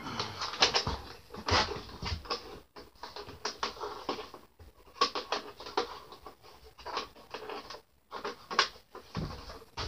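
Handling noise as tools and a plastic jobsite radio are moved about and set on wooden shelving: irregular knocks, clicks and scrapes.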